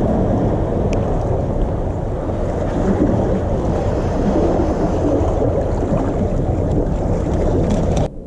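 Wind buffeting the microphone, a loud, steady low rumble with no clear tone, which cuts off suddenly near the end.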